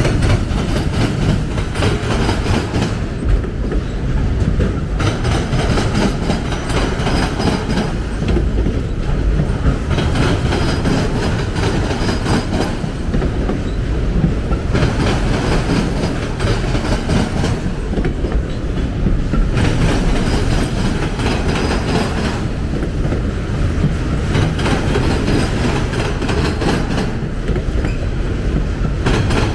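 Autorack freight cars rolling slowly past: a steady rumble of steel wheels on rail with clickety-clack at the rail joints, swelling and easing every few seconds as the cars go by.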